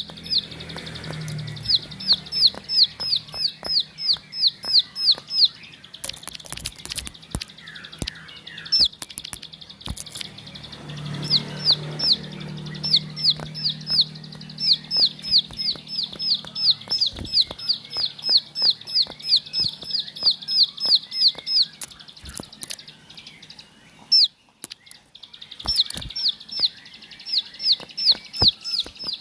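Plain prinia (ciblek sawah) singing: long runs of the same sharp, down-slurred note repeated about three times a second, broken by short pauses. Scattered sharp clicks are heard among the song.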